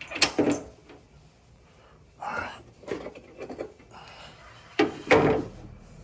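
Clicks and knocks of metal hardware and a car battery being handled, with a couple of short vocal grunts or mutters, the louder one about five seconds in.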